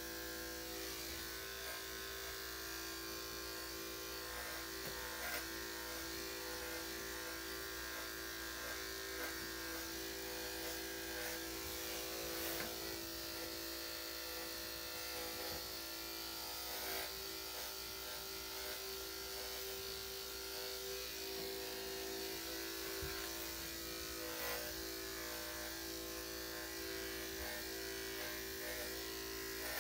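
Electric dog grooming clippers with a #7 blade running with a steady, even hum, the blade freshly oiled. A few faint clicks come through as the clippers work through the coat.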